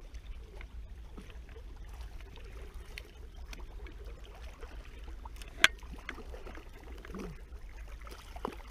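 Shallow river water moving and lapping around a wading angler, over a steady low rumble. There is a single sharp click a little past halfway through.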